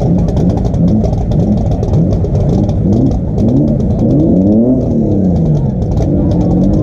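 A drag race car's engine idling with an uneven, choppy note, then revved up and back down about four to five seconds in.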